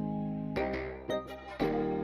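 Background music: sustained keyboard chords that change about half a second in and again near the end.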